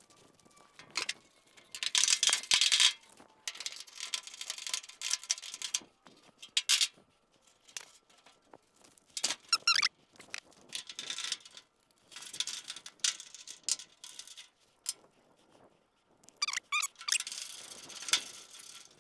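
Badges and trim being worked off a 1963 Ford F100's old hood: uneven spells of metal scraping with short squeaks, broken by brief pauses.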